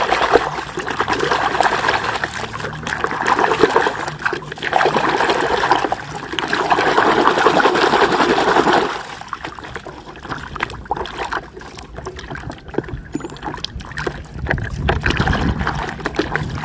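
Water running and splashing over a muddy toy vehicle as it is rinsed clean. It is steady for about nine seconds, then turns quieter, with light clicks and knocks of the toy being handled.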